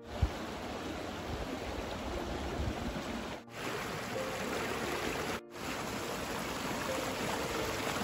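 Mountain stream flowing over granite boulders in small cascades, a steady rush of water that drops out briefly twice.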